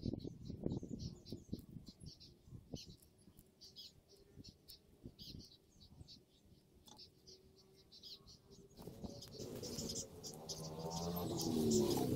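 Small birds chirping repeatedly, with soft rustles and light taps as masking tape is peeled off a chisel handle. In the last few seconds a louder sound with a wavering pitch builds up.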